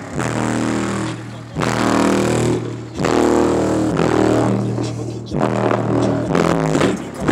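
Bass-heavy music played loud through a car's Image Dynamics IDMAX 12-inch subwoofers, heard from outside the car: deep bass notes pulse in phrases of a second or so, with short breaks between.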